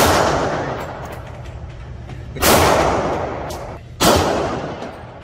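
Three gunshots at a shooting range, the second about two and a half seconds after the first and the third about a second and a half later, each with a long fading echo.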